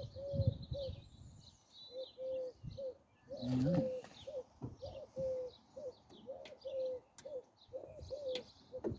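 Birds calling: a run of many short, low cooing notes with fainter high chirps above them.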